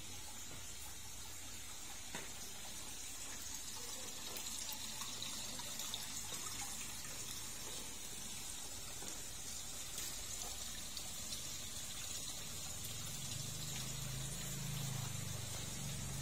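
Water splashing and trickling steadily into a rockery koi pond from its fountain spouts. A low engine hum, from a motorbike, comes in near the end.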